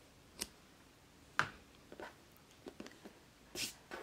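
Scissors snipping sewing thread tails: a few faint, sharp clicks, the loudest about a second and a half in, with a short rustle of fabric being handled near the end.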